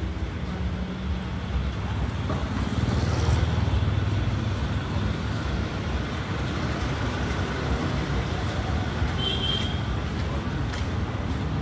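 Street traffic: cars and motorbikes running along a busy road, a steady hum that swells as a vehicle passes about three seconds in.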